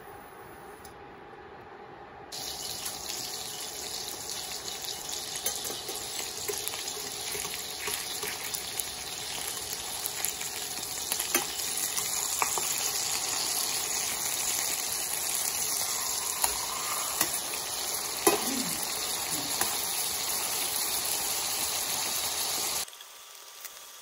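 Beef burger patties sizzling in hot oil in a stainless-steel frying pan, a dense steady hiss that starts about two seconds in and cuts off shortly before the end. A few sharp clicks and scrapes come from a metal spatula against the pan as the patties are turned.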